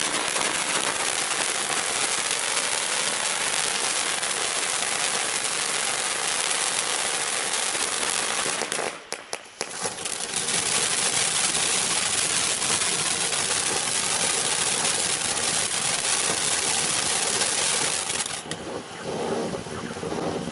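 Iron Man 5 Minute Safari ground fountain firework burning, with a steady loud hiss and dense crackling of sparks. It falls away for about a second some nine seconds in, then starts up again, and the hiss turns duller near the end.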